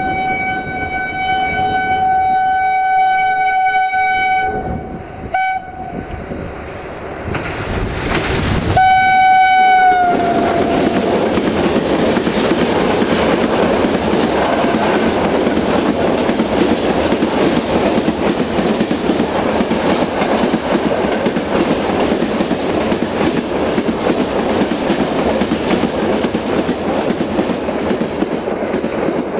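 LDE2100 (060-DA) diesel-electric locomotive's horn sounds a long steady blast, a short toot, then a second blast that sags in pitch as it cuts off. Then a long train of freight hopper wagons rolls past close by, wheels clattering steadily on the rails.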